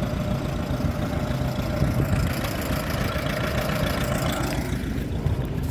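An engine idling steadily with a low rumble, a thin whine over it fading out about four and a half seconds in.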